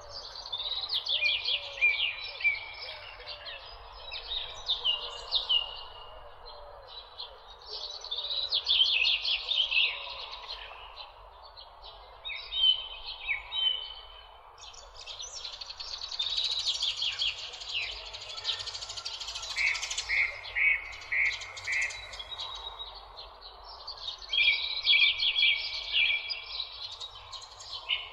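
Several birds chirping and singing in quick trills and repeated calls, with a run of five short even notes about twenty seconds in, over a steady background hiss.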